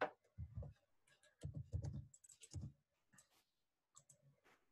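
Computer keyboard and mouse clicking quietly: a run of short, irregular taps and clicks.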